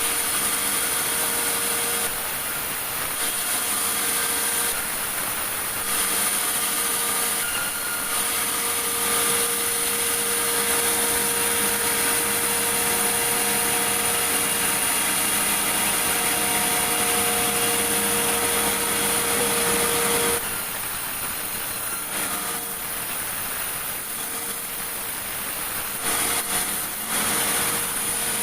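Sawmill saw cutting large meranti timber: a dense, steady machine noise with a held hum. About twenty seconds in the hum drops out and the sound gets quieter.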